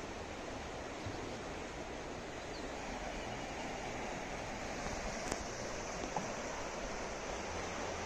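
Flowing river water rushing steadily, with a couple of small clicks, the clearest a little past five seconds in.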